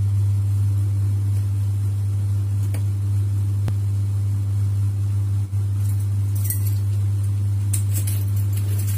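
A loud, steady low hum throughout. Near the end come a few light clinks and rattles as a door handle is worked.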